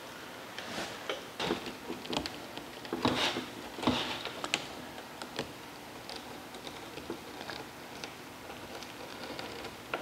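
Screen spline roller being rolled along a screen door frame's channel, pressing the screen mesh and cord spline in with short irregular clicks and scrapes, busiest in the first half and fading to faint ticks.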